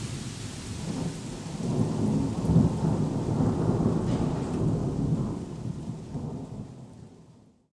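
Thunderstorm: steady heavy rain with a deep roll of thunder that swells about two seconds in and rumbles on, then the whole sound fades out near the end.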